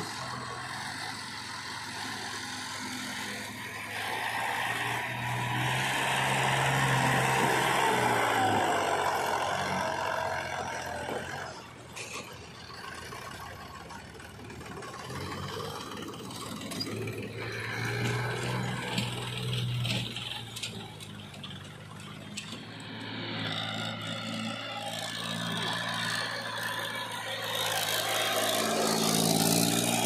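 Diesel farm tractor engines running under load while pulling trolleys full of mud, with a backhoe loader nearby. The engine note rises and falls several times as the revs are raised and eased, and there is one sharp click about twelve seconds in.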